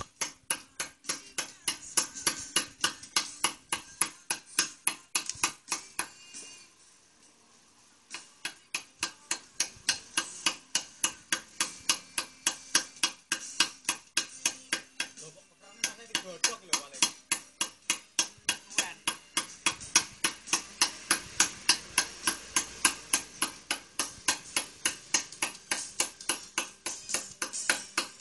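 Hammer tapping a steel chisel into stone, quick even strikes about three to four a second, pausing for about two seconds some six seconds in before resuming.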